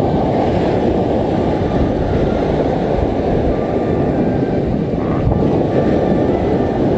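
Heavy surf breaking and washing up onto the beach, a steady loud rushing rumble.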